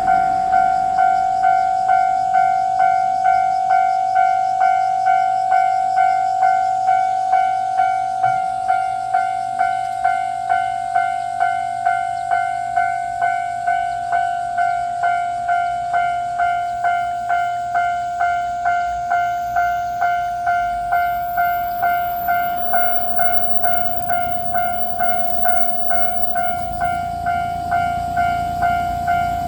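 Japanese railroad crossing warning bell ringing steadily at about two strokes a second. Near the end the low rumble of an approaching train rises underneath it.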